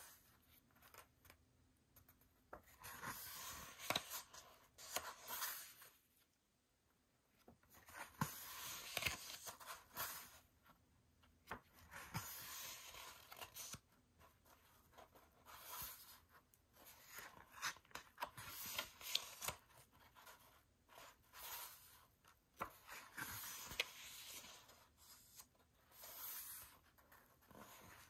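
Pages of a glossy album photobook being turned by hand: soft paper swishes and rustles every two to three seconds, with a short silent pause about six seconds in.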